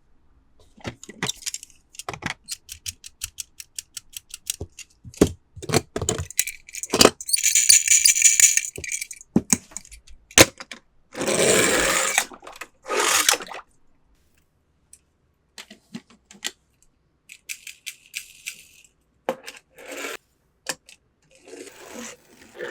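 Toy cars and their plastic packaging being handled: a run of sharp clicks and small rattles, broken by two longer stretches of rustling crinkle about eight and eleven seconds in.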